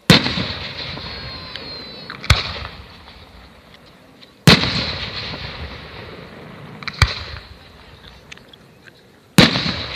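Aerial fireworks bursting overhead: five loud bangs about two to two and a half seconds apart. Each is followed by a long tail that fades over a second or two.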